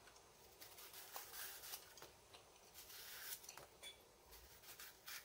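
Knife peeling the skin off a green matooke banana: faint, irregular scraping and cutting strokes with a few small clicks.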